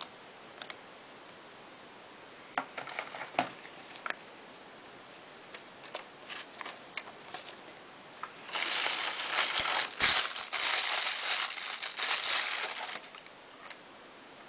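Plastic bag wrapping crinkling loudly for about four seconds as accessories are pulled out of a cardboard box, after scattered light clicks and taps of the box and its parts being handled.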